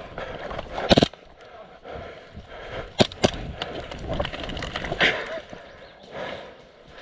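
Footsteps and rustling as a player moves over dry ground and undergrowth, with a loud scuff about a second in and two sharp cracks a quarter second apart about three seconds in.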